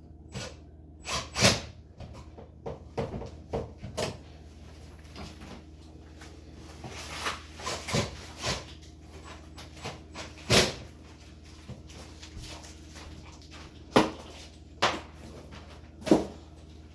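Irregular clicks and knocks of handle hardware being fitted and tapped onto the doors of a built-in refrigerator, over a low steady hum.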